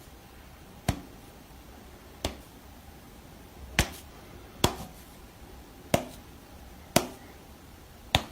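Seven short, sharp knocks at uneven intervals, each with a brief ring after it.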